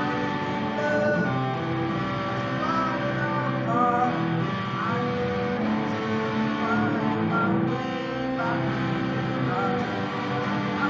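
Sunburst Les Paul-style electric guitar playing a melody of held notes, some of them wavering or bending upward in pitch.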